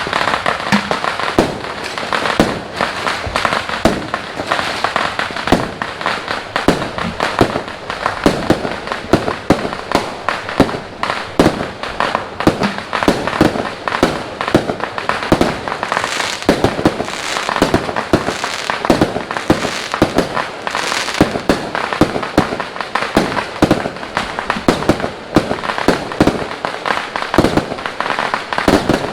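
Fireworks and firecrackers going off in a dense, continuous barrage of overlapping sharp cracks and bangs.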